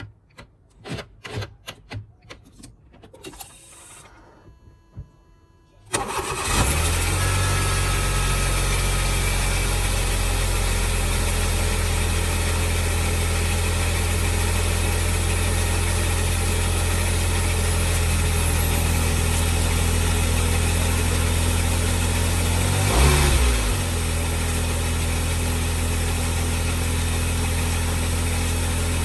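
A few clicks and knocks, then the 2003 Smart fortwo's three-cylinder petrol engine starts about six seconds in and idles steadily, with a short rev blip about 23 seconds in. It is running smoothly on all three cylinders, its cylinder-3 misfire cured by new spark plugs and HT leads.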